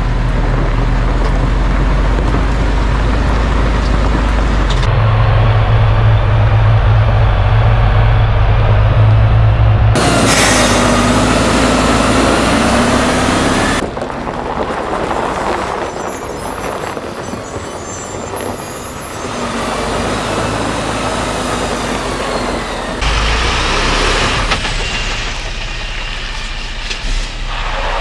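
Mercedes-Benz Arocs tipper truck's diesel engine running under load as it drives over gravel, heard in several spliced shots whose engine note and noise change suddenly from one to the next.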